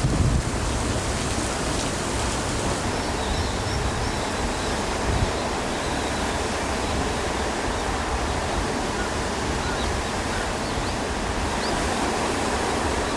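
Steady rushing noise of sea surf breaking on a rocky shore, an even roar with no distinct single waves.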